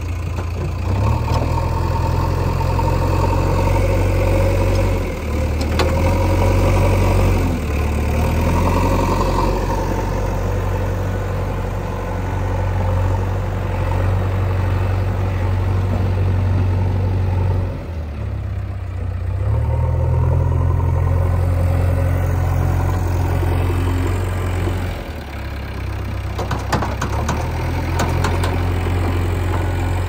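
JCB 3DX backhoe loader's diesel engine working as the machine scoops and carries soil in its front bucket, the engine note stepping up and down several times with throttle and hydraulic load. A few sharp knocks sound near the end.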